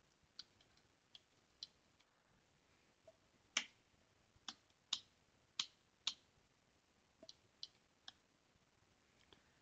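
Faint, irregular key presses on a computer keyboard: a few soft clicks, then a run of louder, sharper keystrokes in the middle, then a few more soft ones, as a terminal command is typed.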